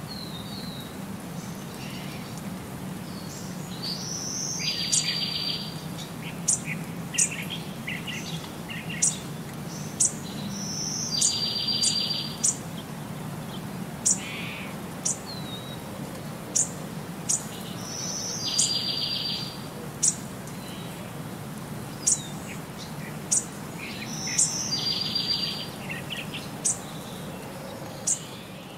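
Birds chirping: a rapid trill about a second long that comes back about every six to seven seconds, with short sharp high chirps in between, over a steady low hum.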